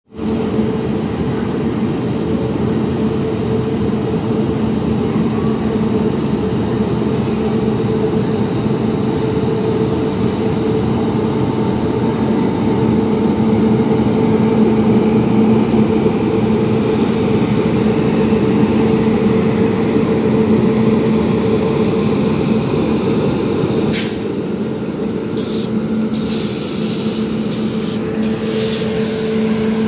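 WAP-7 electric locomotive pulling away slowly, its steady electrical hum at two low pitches with a thin high whine above. About 24 seconds in a sharp clack sounds and the high whine drops out as the locomotive passes and the coaches follow, with a few more clicks of wheels over the rails.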